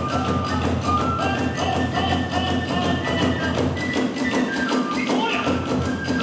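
Kagura hayashi music: drums beating a quick, steady rhythm under hand cymbals and a bamboo flute playing a stepping melody.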